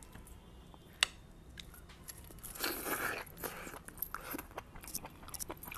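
Quiet eating sounds: a man biting into and chewing a chicken drumstick in curry. There is a sharp click about a second in, then a stretch of wet chewing noise around the middle with small mouth clicks.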